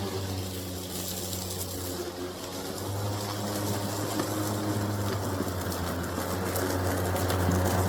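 Ryobi 40V battery lawn mower running steadily with its blade spinning, cutting and bagging fallen leaves; a constant low hum with a faint hiss, getting a little louder near the end.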